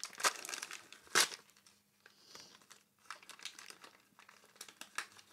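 Packaging of a collectible figure pack crinkling and crackling as it is handled and opened by hand, in scattered crackles with a sharper snap about a second in.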